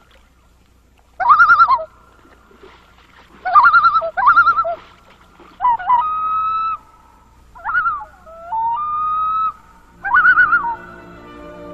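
Common loon calling: repeated short, wavering tremolo calls alternating with longer rising notes that hold steady. Music with a sustained low chord comes in near the end.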